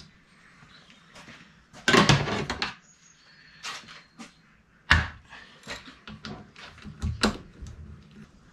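Metal clatter and clanks as a stainless steel parts tray is handled and set down on a cast-iron bench vice. There is a loud rattling clatter about two seconds in and a sharp clank just before five seconds, followed by a few lighter clicks from work on the crown-wheel bolts.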